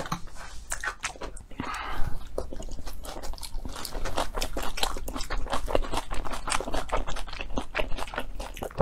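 A person chewing and biting food close to the microphone: wet mouth noises with many quick, irregular clicks.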